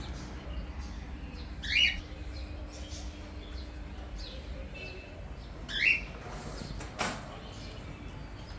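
Small birds chirping, with two louder calls that each sweep downward, about four seconds apart, and fainter chirps between. A sharp click about seven seconds in, over a low steady hum.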